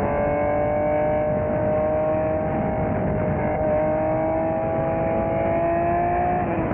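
Honda NSX V6 engine pulling hard under load, its pitch climbing slowly and steadily, with a brief dip about three and a half seconds in.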